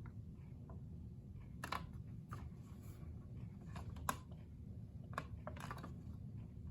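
A few sharp plastic clicks spread over several seconds as a Kidde smoke alarm's test button is pressed, and no alarm sounds: the alarm fails to respond to its test.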